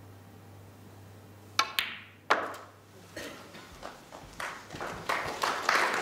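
Snooker cue tip striking the cue ball with a sharp click, then a second sharp click under a second later as the cue ball hits the pink, which is potted. Lighter knocks from the balls follow, and audience applause starts up near the end.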